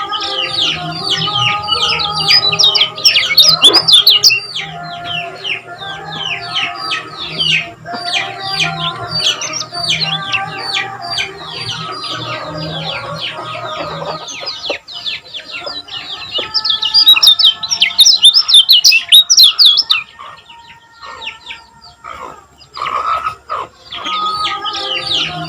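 Kecial kuning singing a fast, dense run of high chirps, loudest in bursts a few seconds in and again past the middle and thinning out near the end. A steady backing of lower tones runs under it and stops about halfway.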